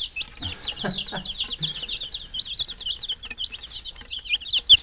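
A flock of baby chicks peeping constantly, many short, high chirps overlapping in a rapid stream, with a few soft knocks beneath.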